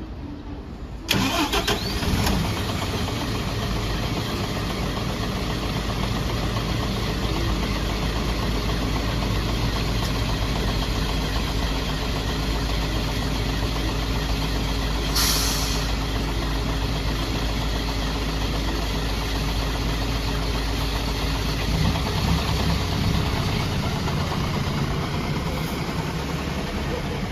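City bus diesel engine started: it cranks and catches about a second in, then settles into a steady idle. A short air hiss comes about fifteen seconds in.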